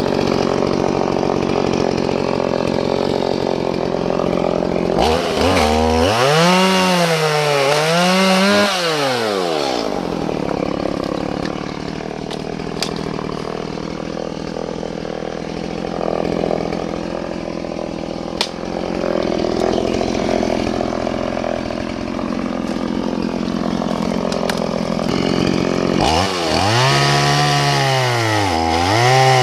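Two-stroke chainsaw running as it saws into a dead Osage orange limb. The engine speed rises and falls in waves about five seconds in and again near the end, and runs steadier under the cut in between.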